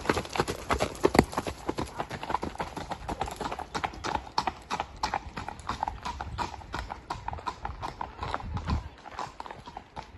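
Horses' hooves clip-clopping on a hard gravel track, a quick, even run of sharp hoofbeats, several a second, from more than one horse.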